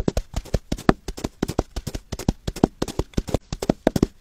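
Foley horse hoofbeats: two half coconut shells knocked on a bed of loose grit, giving a quick, uneven clip-clop of about five or six knocks a second, like a horse at a gallop.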